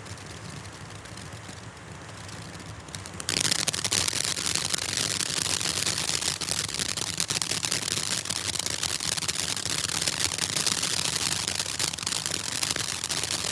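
Black Cat Tropical Thunder ground fountain hissing as it sprays sparks. About three seconds in, it turns much louder into a dense, rapid crackling of many small pops that keeps going.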